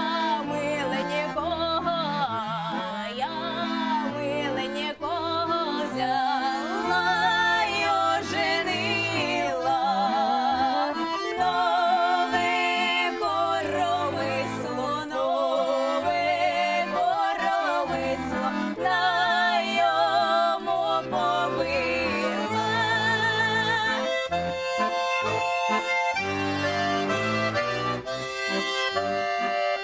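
Bayan (chromatic button accordion) playing a lively folk tune. From about 24 seconds in it switches to short, choppy rhythmic chords.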